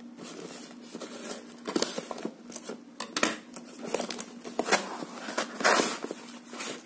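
A cardboard parcel wrapped in plastic being torn open by hand: irregular crinkling, scraping and tearing of paper, cardboard and plastic, with small knocks of handling. The loudest tear comes near the end. A faint steady low hum runs underneath.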